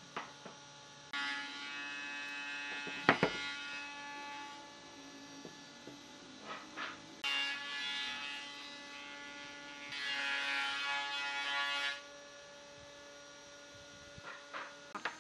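An electric hum that comes and goes in stretches of two or three seconds, with a few sharp knocks; the loudest knock comes about three seconds in.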